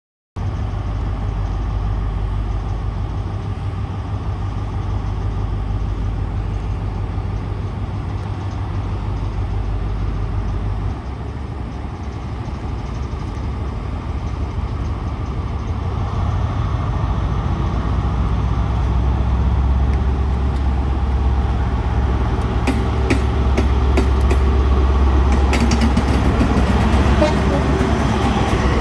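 Class 43 HST power car's MTU diesel engine running with a steady low drone, then building up as the train pulls away and passes close by. A run of sharp clicks comes in near the end.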